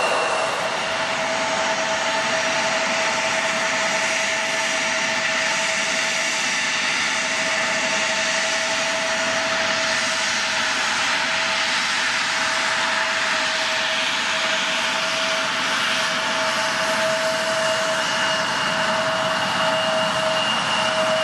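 Jet airliner engines running steadily: a constant whine over an even rush of noise, with no change in level.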